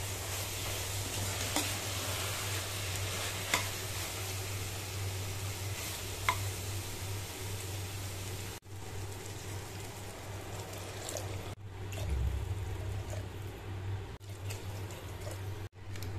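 Spiced chicken pieces sizzling in a steel pot as they are stirred with a metal ladle, with three sharp clinks of the ladle against the pot in the first few seconds. A steady low hum runs underneath.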